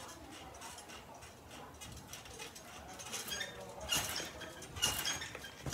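Trampoline springs squeaking and creaking under a bouncing child: faint at first, then a quicker run of sharp squeaks from about three seconds in as the bouncing picks up.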